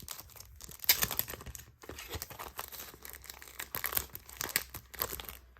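Photocard packaging crinkling and rustling as it is handled and opened, in irregular crackles with louder bursts about a second in and near four seconds.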